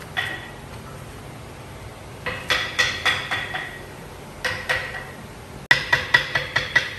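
A hammer tapping on metal in short, irregular runs of quick blows, each blow ringing with the same clear tone: one tap near the start, a run of about five a couple of seconds in, two or three more, then a fast run of about seven near the end.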